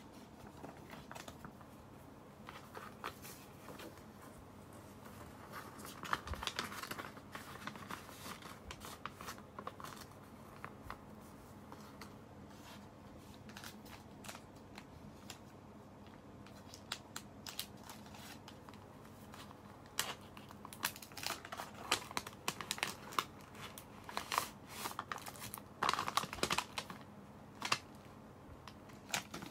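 Paper rustling and crinkling as a handwritten letter and thin paper envelopes are handled and folded, with scattered soft clicks. The handling grows busier and louder in the last third.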